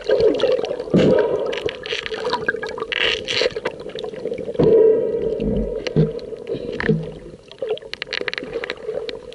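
Underwater sound through a camera's waterproof housing: a muffled steady hum with bubbling and gurgles, and many sharp clicks and knocks from hands and gear handled right against the camera.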